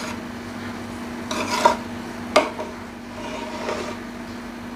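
Metal spoon stirring drained rice in a large aluminium pot: soft scraping and rustling, with one sharp clink of spoon against pot about halfway through. A steady low hum runs underneath.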